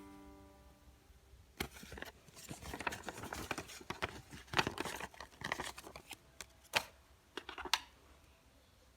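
Hand-handling noises: an irregular run of sharp clicks, taps and scratchy rustles, as of small objects or packaging being handled, lasting about six seconds with a few louder clicks. The last note of background music dies away in the first second.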